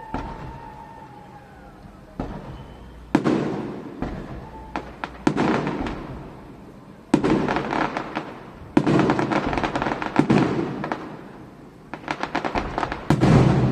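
Aerial fireworks shells bursting in an irregular series of loud bangs, about ten of them a second or two apart, each trailing off into crackling that fades, with the bursts coming thicker near the end.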